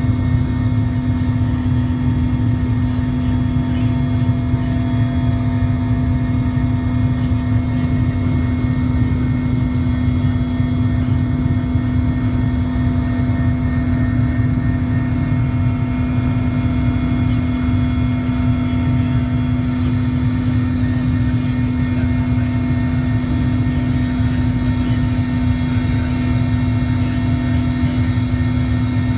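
Cabin noise of a Mil Mi-17 helicopter in flight, its twin turboshaft engines and rotors making a loud, steady drone with a strong low hum that does not change.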